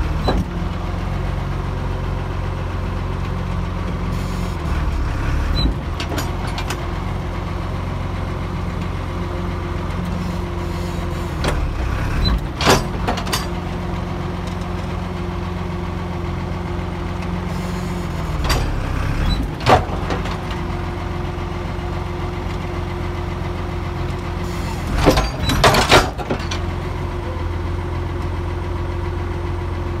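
Farm tractor engine running steadily at low revs, with a few short knocks and rattles, the loudest cluster near the end.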